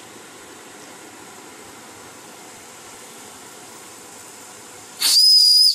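Fleischmann 135/2 live steam boiler hissing steadily, then, about five seconds in, a short, shrill blast of its steam whistle that is far louder than the hiss and cuts off sharply after under a second.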